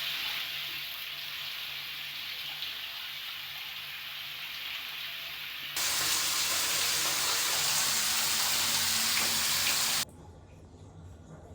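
Steady hissing noise. It gets louder about six seconds in and drops off abruptly about ten seconds in.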